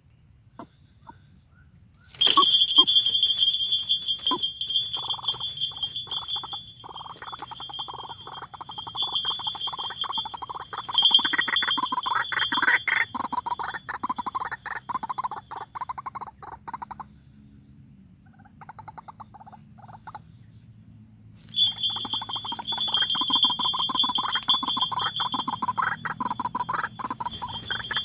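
White-breasted waterhen calling from a decoy cage trap: long bouts of rapidly repeated calls, starting about two seconds in, breaking off for a few seconds past the middle, then starting again.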